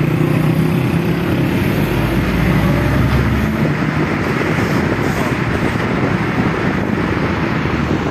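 Road vehicle on the move: a steady low engine hum under road and wind noise, the hum dropping away after about three and a half seconds and leaving an even rush of road noise.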